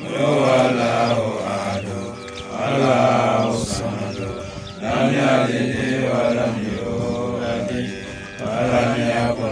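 A man's voice chanting an Islamic prayer in about four long, melodic phrases with short breaks between them.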